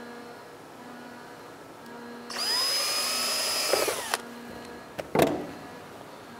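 Power drill spinning up and boring a mounting hole through the snowmobile's plastic body panel for about two seconds, then winding down, followed a second later by a short second burst of the drill.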